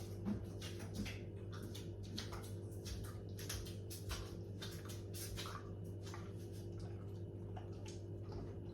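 Someone chewing a crunchy snack: faint, irregular crunches and clicks, one to three a second, over a steady low hum.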